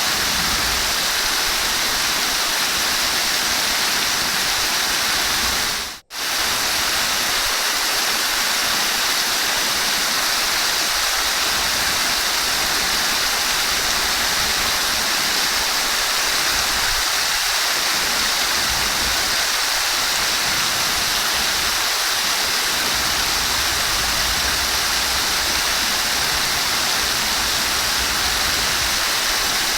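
Flowing water rushing steadily, a constant hiss-like wash of moving water. The sound cuts out for a split second about six seconds in, then resumes unchanged.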